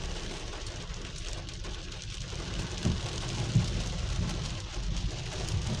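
Rain pattering on a car's windshield and body, heard from inside the car, over a steady low rumble of the moving car. A few dull thumps stand out, the loudest about three and three and a half seconds in.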